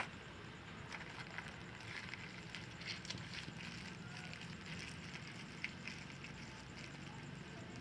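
Faint, scattered crackles and ticks as cooking oil is squeezed out of a plastic bag into a frying pan, with a sharp click at the very start.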